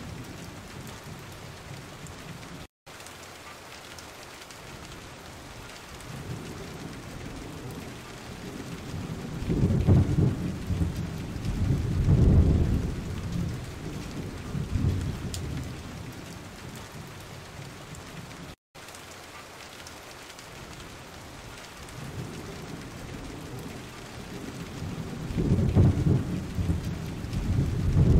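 Steady heavy rain with thunder: long low rumbles swell up about ten seconds in and again near the end. Twice the sound drops out for an instant.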